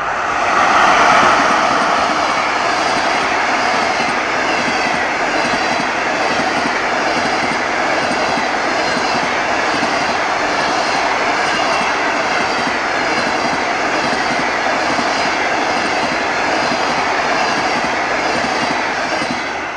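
Passenger train hauled by a ChS7 electric locomotive passing close at speed, loudest about a second in as the locomotive goes by. Then a long run of coaches rushes past with a regular clickety-clack of wheels over the rail joints.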